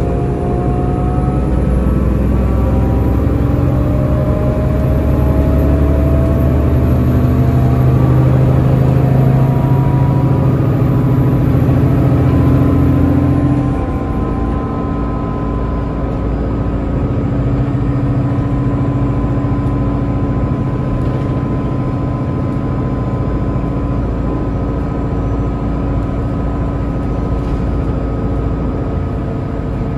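Solaris Urbino 18 IV CNG articulated bus heard from inside the cabin while driving, its Cummins ISLGE6 natural-gas engine and Voith four-speed automatic gearbox pulling with a slowly rising note. About halfway through the engine sound drops off and the bus rolls on with a steadier, quieter drive whine.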